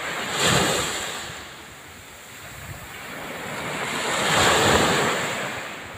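Small sea waves washing up onto a sandy beach, surging twice: about half a second in and again around four to five seconds in.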